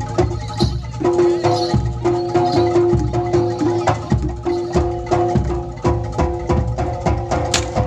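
Live Javanese gamelan-style ensemble music: quick even drum and wood-block-like strikes over ringing metallophone and gong tones.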